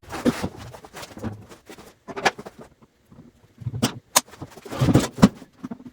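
Irregular clicks, knocks and clatter of hands and tools working on a small drinks refrigerator, loudest in a burst of knocks and thuds about five seconds in.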